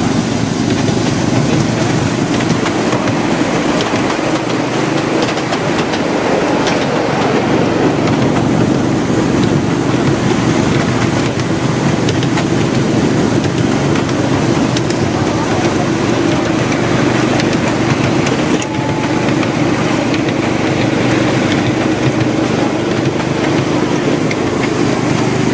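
Miniature railway train running along the track, heard from aboard a passenger car: a steady rumble and rattle of the wheels on the rails, with a steady low drone.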